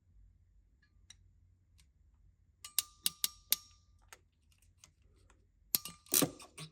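Ratcheting crimping tool clicking shut on a new wire terminal: four sharp clicks in about a second, some with a short metallic ring, then a few more clicks near the end.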